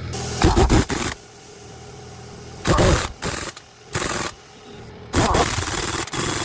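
Impact wrench hammering on truck wheel lug nuts in four short bursts of rapid rattling, with brief pauses between them.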